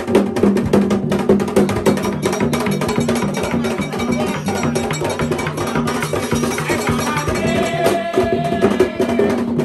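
Haitian Vodou ceremonial music: drums and sharp clacking percussion keep a fast, steady beat. A held high note comes in near the end.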